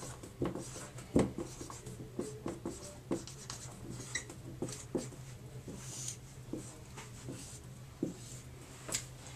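Felt-tip marker writing on a white board: short, irregular scratchy strokes as letters and numbers are drawn, over a faint steady low hum.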